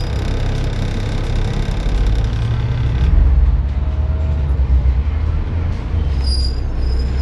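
Dennis Trident double-decker bus's diesel engine running at a standstill, heard from the upper deck, a steady low rumble that grows deeper and louder about three seconds in.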